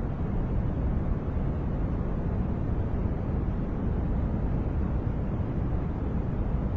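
Steady noise track sold as white noise: a constant, unchanging rushing hiss weighted toward the low end, more rumble than treble.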